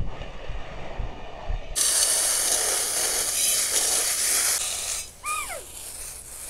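Garden hose spray nozzle spraying water, first into a steel pot of rocks, then a loud hiss from about two seconds in that eases off a little after four seconds. A child's short call comes near the end.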